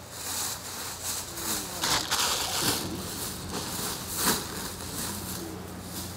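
Bissell PowerForce Compact upright vacuum running, with an irregular crackling rattle of dirt and cereal bits being sucked up. The hiss drops away near the end.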